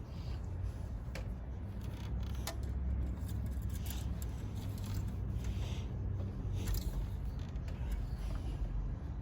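Light metallic clicks and scrapes of the Toyota Highlander's engine-oil dipstick being pulled out of its tube and slid back in, over a steady low rumble.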